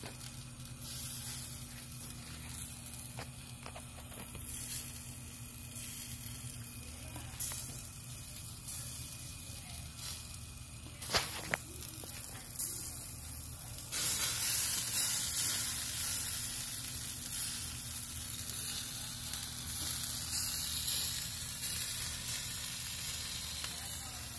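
Sauce-glazed pork shoulder sizzling on a smoker's grill grate: a steady hiss that grows louder about 14 seconds in, over a low steady hum, with a couple of sharp clicks near the middle.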